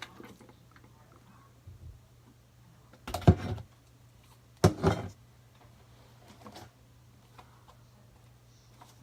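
Two short bursts of knocking and rattling, about three and five seconds in, as slime containers are put down and picked up, over a faint steady hum.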